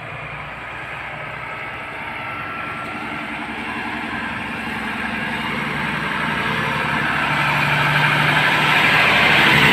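Heavy truck engine labouring up a slippery wet climb, growing steadily louder as the truck comes closer, with a rising hiss.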